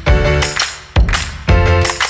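Instrumental background music with a steady beat and held pitched notes.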